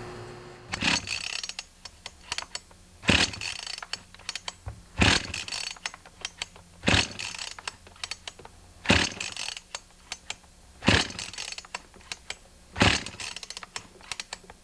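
Husqvarna 45 chainsaw pulled over on its recoil starter for a cold compression test, with the spark plug out and a compression gauge in the plug hole. There are about seven pulls, roughly two seconds apart, each cranking the engine against strong compression (about 155 psi) without it firing, with lighter clicks between the pulls.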